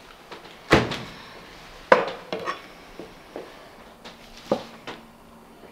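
Knocks and light clatter of kitchen utensils handled on a wooden cutting board: two sharp knocks about a second apart, then a string of lighter clicks and taps.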